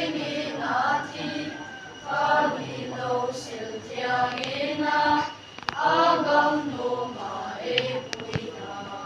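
Children's choir singing together in phrases, with short breaks for breath between them.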